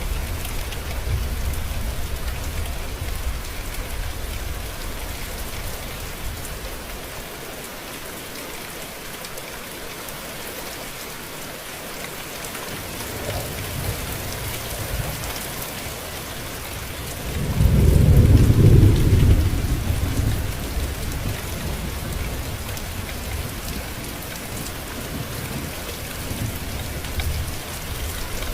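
Steady rain falling, with thunder: a low rumble at the start that dies away, then a loud rumble of thunder lasting a couple of seconds a little past halfway.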